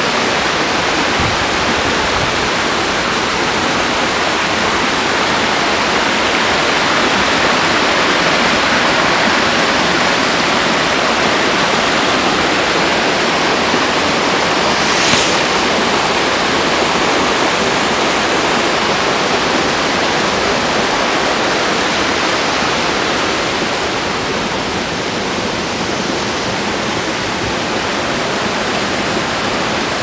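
Waterfall cascading over rocks: a steady, loud rush of falling water with one brief sharp click about halfway through.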